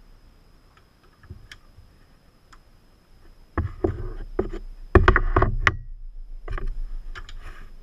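A large screwdriver levering the water pump pulley off a BMW M54 engine. There are a few faint clicks, then from about three and a half seconds in come several loud bursts of metal scraping and creaking as it pries, the loudest just past halfway.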